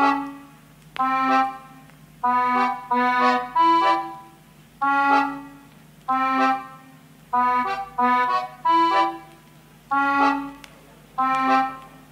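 Instrumental music: a melody of pitched notes, each struck sharply and fading away over about a second, played singly or in short groups with brief pauses between phrases.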